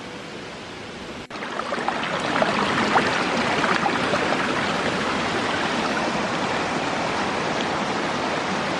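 A small mountain stream running and splashing over rocks, cutting in suddenly about a second in after a quieter hiss, then steady.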